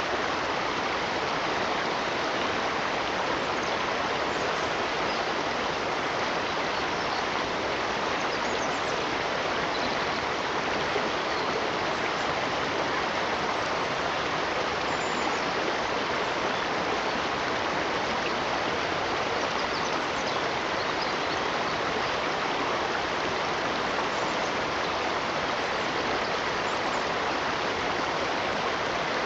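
Steady, unbroken rush of a flowing stream.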